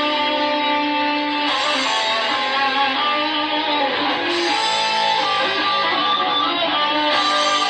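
Guitar music: sustained, layered guitar notes with no singing.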